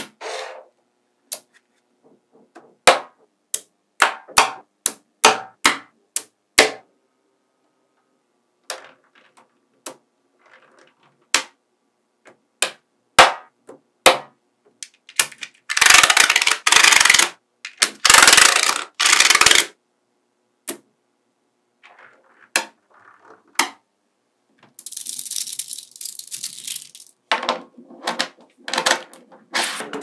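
Small metal magnetic balls clicking sharply together as blocks of them are snapped into place, many separate clicks. In the middle, a long loud scraping rasp as a thin plastic card is pushed and drawn between rows of the balls. Near the end, a quick run of rattling clicks.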